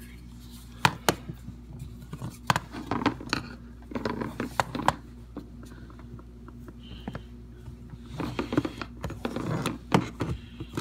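Scattered sharp clicks, knocks and scrapes of hands and a handheld flashlight working in the tight space under a dishwasher, over a steady low hum.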